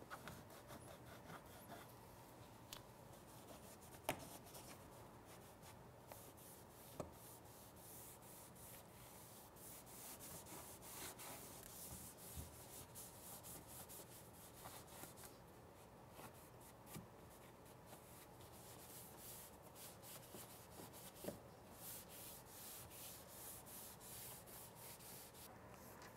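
Faint, irregular rubbing of an applicator pad wiping ceramic coating onto a plastic inner wheel-well liner, with a few light ticks in between.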